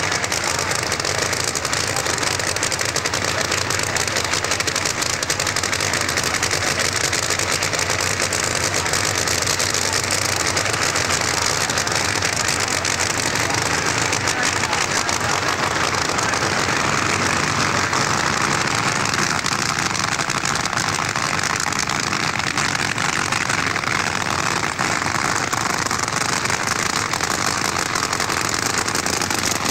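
Supercharged V8 of a 1957 Chevy-bodied nitro funny car running steadily at low speed: a dense, rough engine sound with no revving and no rise or fall in level.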